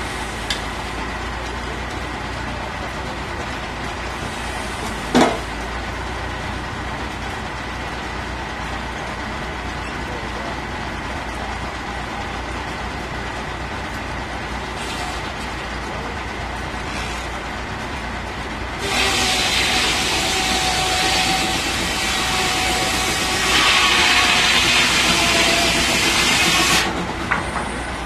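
Circular sawmill blade spinning with a steady mechanical hum and one sharp knock about five seconds in. About nineteen seconds in, the blade bites into the wood and the cut runs loud for some eight seconds, its whine dipping a little in pitch under the load, before it drops back to the idle hum.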